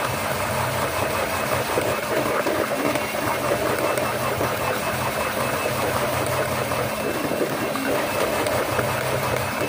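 Electric hand mixer running steadily, its beaters whipping a thick white mixture in a plastic bowl.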